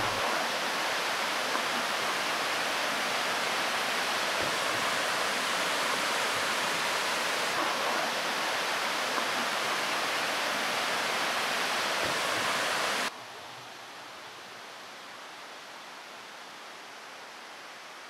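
Waterfall: water cascading over rock ledges, a steady loud rush. About two-thirds of the way through it drops suddenly to a softer rush.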